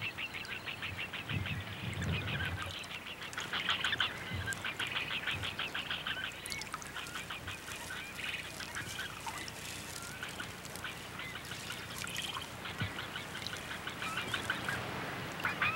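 American bittern chicks on the nest giving runs of rapid ticking calls, many a second, as they beg their mother for food.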